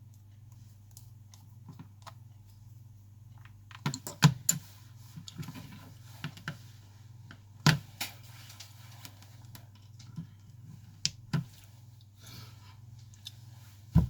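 Scattered sharp clicks and taps of small tools and phone parts being handled on a workbench, over a steady low hum. The loudest taps come about four seconds in, near eight seconds, around eleven seconds and near the end.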